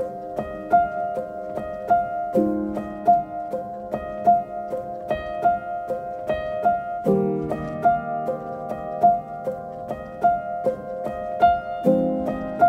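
Background instrumental music: a gentle melody with a high note repeating roughly every three-quarters of a second over low chords that change every few seconds.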